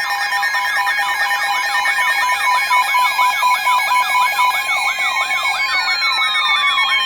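Several electronic sirens sounding together: a fast up-and-down yelp, about three sweeps a second, over steady alarm tones, with long falling glides starting about five seconds in.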